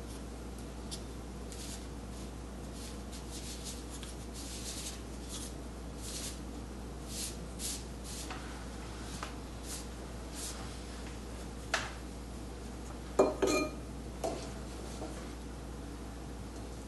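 A broad ink brush swishing in short strokes across rice paper. Near the end, a few clinks ring out as the brush knocks against a porcelain ink plate.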